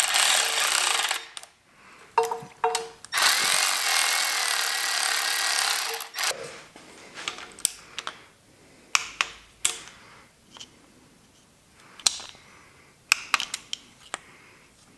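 Cordless electric ratchet running down the bolts of a new water pump on a Porsche M96 engine block: a burst of about a second, then a longer run of about three seconds. After that come scattered short metallic clicks and taps from hand tools on the block.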